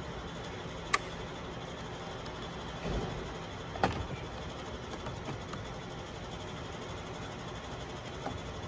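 Plastic dash trim being worked loose by hand: a sharp click about a second in, a short scraping rustle near three seconds, another click just before four seconds and a faint tap near the end, over a steady low hum.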